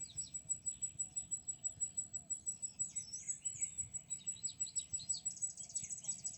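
Small birds chirping and twittering, with short calls throughout and a quick rapid trill about five to six seconds in, over a steady thin high-pitched tone.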